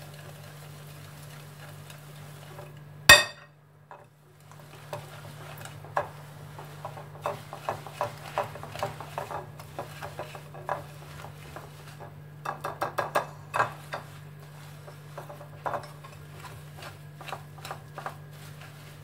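Wire whisk stirring a thick, crumbly semolina dough in a ceramic bowl, with irregular scraping and clinking of the metal against the bowl. There is one sharp knock about three seconds in, the loudest sound, and a quick run of clinks around twelve to fourteen seconds. A steady low hum sits underneath.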